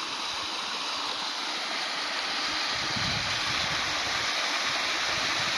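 Stream running: a steady rush of flowing water, growing slightly louder.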